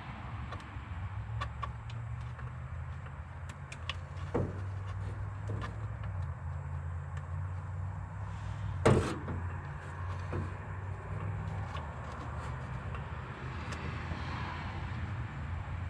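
Soldering torch burning with a steady low rumble while a brass radiator is heated for soldering, with scattered small metal clicks and a sharp knock about nine seconds in.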